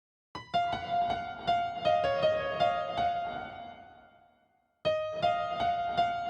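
Instrumental music: a keyboard plays a phrase of single struck notes, each ringing and fading, that dies away to silence, then a new phrase begins near the end.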